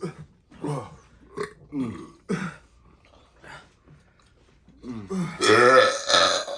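A person burping. A few short burps come in the first two and a half seconds, then one long, loud burp about five seconds in.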